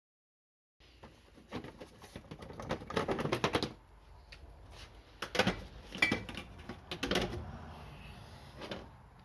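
Yamaha XMAX 125 scooter's relay clicking rapidly for about two seconds as starting is tried, then single sharp clicks on later tries, with no engine cranking or catching: the sign of a bad relay.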